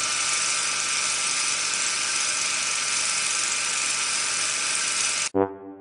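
A steady, loud whirring hiss that cuts off suddenly near the end, followed at once by the first notes of brass music.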